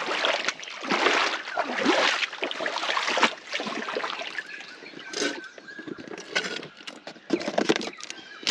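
Shallow floodwater splashing and sloshing in irregular surges, roughly one a second.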